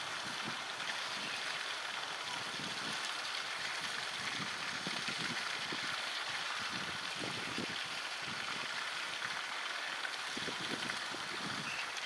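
Steady rush of flowing stream water, with a few soft low thumps scattered through it.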